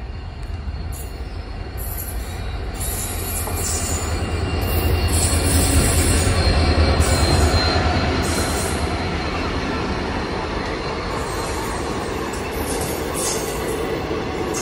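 Diesel-hauled passenger train running into a station past the listener. A heavy diesel rumble swells to its loudest as the twin locomotives pass, about five to eight seconds in, then settles into the steady rolling noise of the coaches going by.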